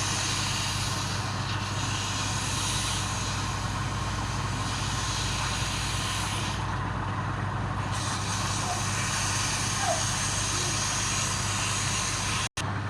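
Electric woodturning lathe running steadily: a constant low motor hum under a broad hiss that swells and fades in the treble. The sound drops out for a moment near the end.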